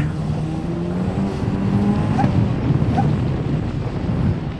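Turbocharged 1.8-litre Mazda BP four-cylinder of an Exocet track car running hard on a lap, heard onboard from the open cockpit. The engine note climbs over the first couple of seconds, then turns rougher and denser.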